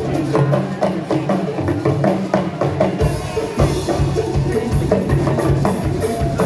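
A Ghanaian Frafra gospel band playing live: music over a steady, evenly repeating drum and percussion beat with a bass line. A brighter cymbal-like sheen joins about halfway through.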